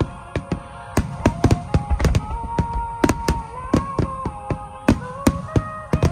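A rapid barrage of fireworks, sharp bangs about three a second from rockets launching and bursting, over music with long held notes that change pitch every second or so.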